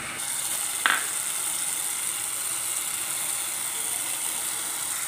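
Tomato-onion masala with kohlrabi chunks sizzling steadily in a pan over the flame, with one short knock about a second in as the kohlrabi leaves go in.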